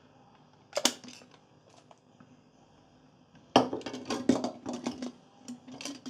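Plastic infuser and lid of a Kamjove TP-757 gongfu teapot being handled: one sharp click about a second in, then a quick run of plastic clicking and rattling as the lid and infuser are worked apart.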